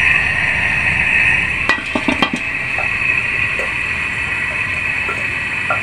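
Gas stove burner hissing steadily at a high flame. About two seconds in, a metal pan clinks several times as it is set down on the burner's grate.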